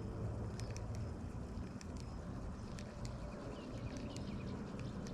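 Outdoor ambience with small birds chirping, short high calls scattered irregularly over a steady low rumble.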